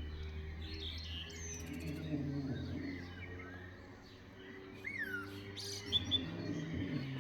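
Small songbirds chirping and twittering, with short whistled notes scattered throughout, over lower drawn-out tones that come and go and a steady low hum.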